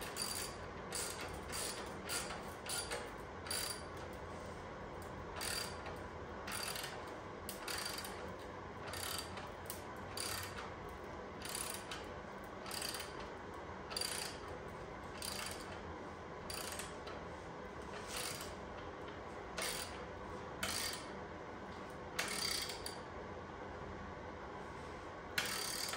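Hand ratchet with a 10 mm socket clicking in short bursts, roughly one a second, as it is swung back and forth to tighten a motorcycle exhaust clamp.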